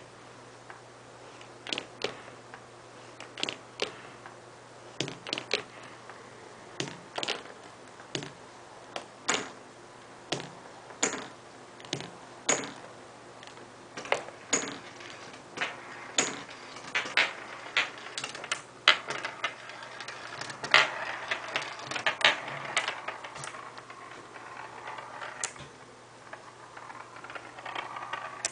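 Glass marbles rolling down a marble run made of stacked, bent paperback books, dropping from one level to the next with sharp clicks about every one and a half to two seconds. The clicks come faster about two thirds of the way in, and a continuous rolling rattle follows as the marbles run out onto the desk.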